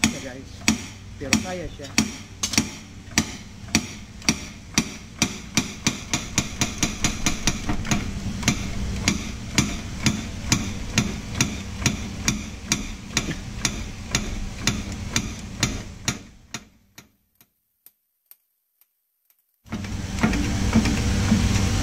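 Repeated sharp metal-on-metal strikes of a hand-held steel block driven down onto a fan motor's shaft to knock it out of its ball bearing, which is supported on drilled steel plates. The blows come about two a second, quicken after several seconds and stop about 16 seconds in; near the end a steady noise sets in.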